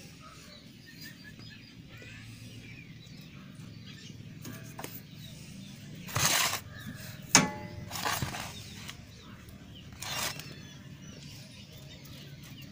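Birds chirping faintly in the background. Three short rushing noises come about 6, 8 and 10 seconds in, and a sharp metallic clink with a brief ring comes at about seven seconds.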